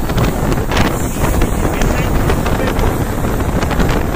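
Steady running noise of the Asarva–Kota Express heard from on board while it moves, with wind buffeting the microphone.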